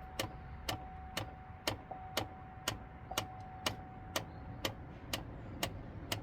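Steady clicking from under the dashboard of a 2006 Chevrolet Trailblazer with the key in accessory, about two sharp clicks a second. A faint steady tone runs underneath and stops about four seconds in. The clicking persists after a fuse-pull reset, and the owner links it to a failing HVAC actuator behind the dash.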